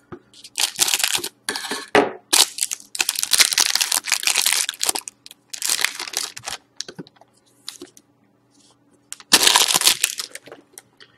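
Foil trading-card pack wrapper crinkling in a run of loud bursts as it is handled and opened by hand, with one more burst of crinkling about nine seconds in.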